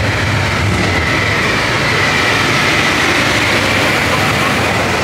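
Steady, loud machine drone: a low hum with a faint high whine over constant noise.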